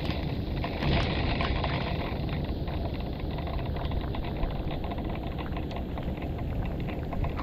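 Heavy rain in a thunderstorm downpour, a steady rushing hiss with a brief louder swell about a second in.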